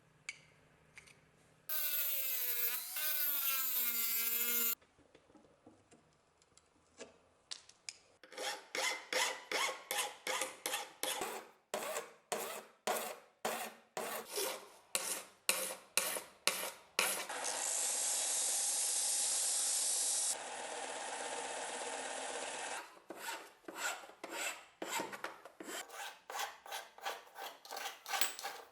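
Hand filing on the ash-wood knife handle: runs of rasping strokes, about two a second. Near the start a whining sound wavers in pitch for about three seconds, and midway a steady hiss runs for about five seconds.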